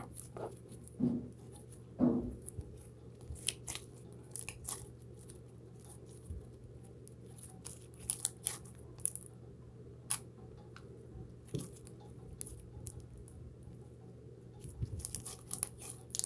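Slime being stretched, folded and squeezed by hand, making irregular small clicks, pops and crackles, with a few heavier squelches in the first couple of seconds.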